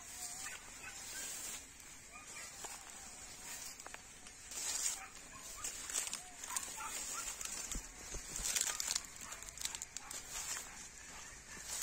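Farm pasture sounds: short bird calls over a steady high insect drone, with scattered rustling and crackling strokes, louder in patches about five and nine seconds in.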